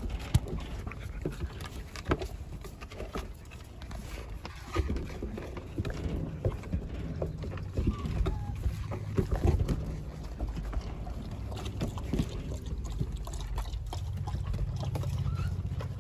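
Five-week-old puppies playing on a wooden deck: claws tapping and paws scuffling on the boards in quick irregular clicks and knocks, with a rubber toy being pushed and chewed.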